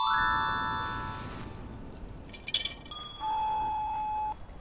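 A bright chime-like note rings out and fades over about two seconds. About two and a half seconds in there is a brief glassy clink, followed by a held tone lasting about a second.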